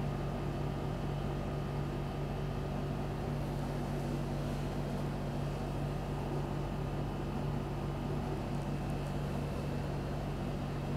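Steady low hum with a faint hiss underneath, unchanging throughout: background room tone with no distinct event.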